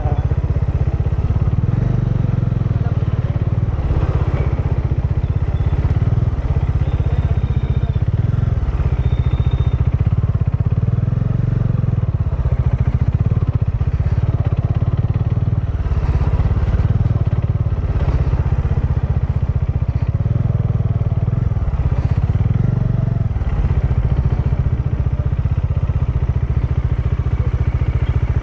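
Motorcycle engine running on the move, a steady low rumble that swells and dips. Two short high beeps come about a quarter of the way in.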